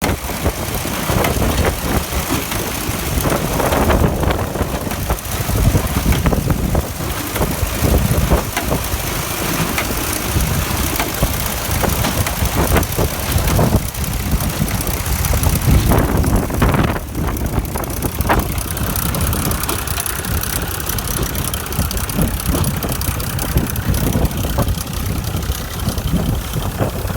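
Tractor engine running with a Massey 701 baler working behind it, baling barley straw: a loud, continuous mechanical clatter with an uneven pulsing beat.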